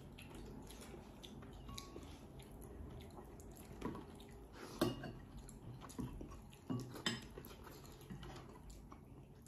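Faint clinks of cutlery and dishes during a meal: about five sharp clicks in the middle, over a low room hum.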